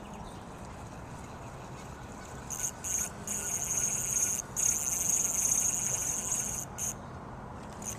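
High-pitched insect trilling, cricket- or katydid-like, starting about two and a half seconds in and running in several stretches with short breaks before stopping near the end, over a faint steady outdoor background.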